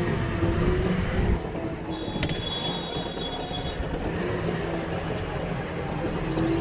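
Diesel engines of backhoe loaders and tractors running steadily. A thin, high-pitched metallic squeal comes in about two seconds in and lasts roughly two seconds.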